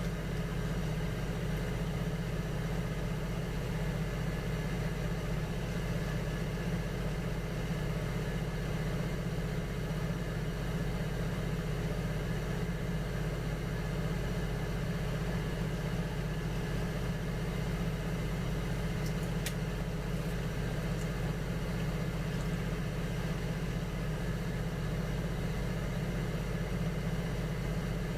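Electric potter's wheel motor running at a steady speed, a constant low hum with a faint click about two-thirds of the way through.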